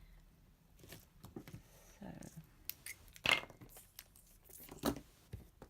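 Scattered light clicks and taps from paper-craft materials being handled and set down on a tabletop, with louder knocks about three seconds in and again near five seconds.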